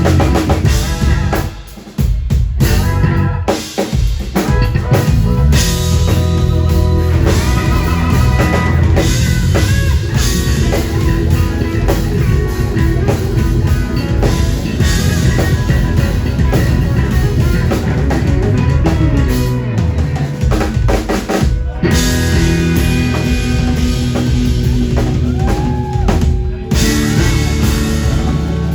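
Live band music: a full drum kit with kick and snare drives the beat under sustained pitched instruments. The band drops out briefly a couple of times early on and again twice later.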